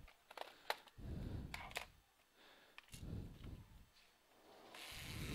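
Handling noise from a laptop on a bench: a few light clicks and taps, then soft low bumps and rustling.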